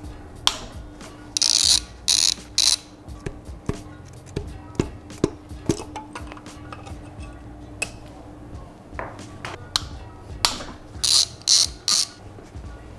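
Socket ratchet clicking in short bursts as the connecting-rod cap bolts of a Renault 5 GT Turbo engine are loosened, with scattered metal clinks and knocks from tools and parts in between. There are two main bursts of ratcheting: one a second and a half in, and one near the end.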